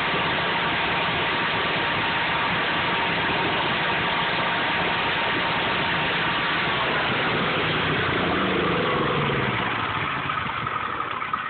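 Generator engine running steadily, then near the end its pitch drops and the sound falls away as the engine slows down.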